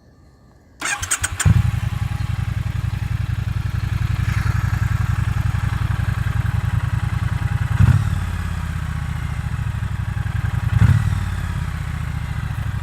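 Triumph Bonneville T100 Black's 900 cc liquid-cooled parallel-twin engine on its stock exhausts being started: the starter cranks briefly about a second in, the engine catches and settles into a steady idle, and the revs rise briefly twice later on.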